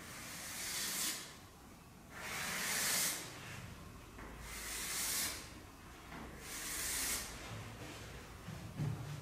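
Chalk scraping on a blackboard in four long strokes, each about a second, as long vertical lines are drawn down the board.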